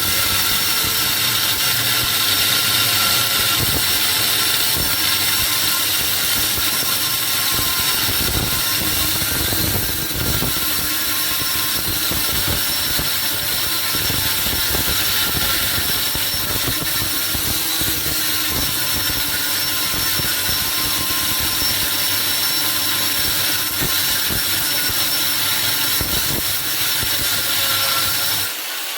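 Handheld power tool running steadily under load on a washing-machine motor's metal, with a high whine over a rasping hiss; it stops shortly before the end.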